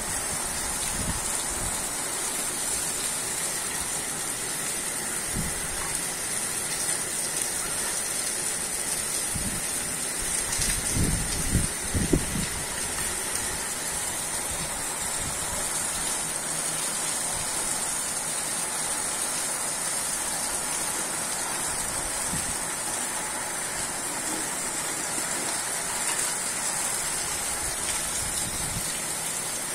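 Steady rain falling, a continuous hiss. A few low thumps about eleven to twelve seconds in.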